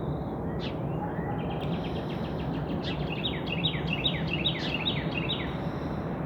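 A songbird singing: repeated clear whistled notes that slide down in pitch, with a quick run of short notes about two seconds in. Under it is a steady low background rumble.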